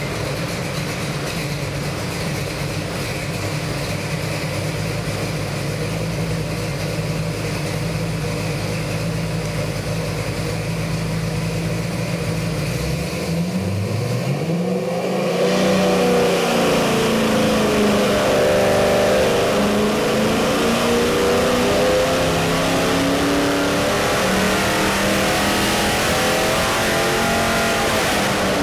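Chevy 350 small-block V8 with MSD Atomic EFI running on an engine dyno. It runs steadily for about 13 seconds, then revs up in a smooth, continuous climb under dyno load during a sweep pull to over 5,000 rpm, getting louder as the pitch rises.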